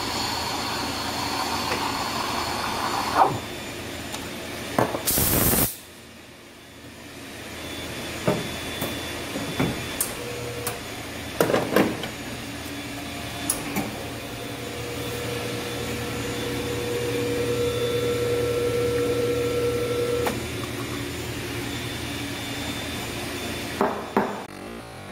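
Commercial espresso machine at work. For the first three seconds the steam wand hisses steadily as it froths milk in a stainless steel pitcher, and a short loud hiss follows about five seconds in. Then come scattered sharp knocks and clicks of the portafilter at the group head, and a steady hum with a held tone from about fifteen to twenty seconds in as the machine runs.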